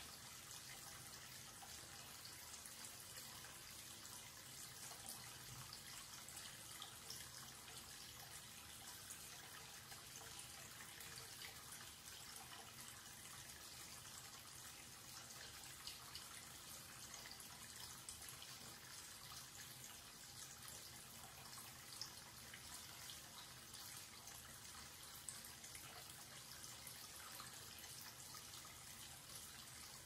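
Tap running a steady stream of water into a white wash basin and swirling down the open drain: a faint, even splashing hiss with small scattered ticks.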